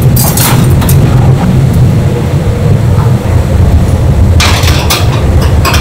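Stainless wire grill racks clattering and scraping against metal trays and the grill oven, with a few sharp clinks early on and a dense run of clatter from about four and a half seconds in. Under it, a loud steady machinery hum.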